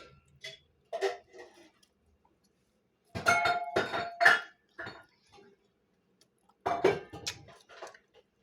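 Dishes and utensils clinking and clattering in three short bouts, with brief ringing after the sharper knocks.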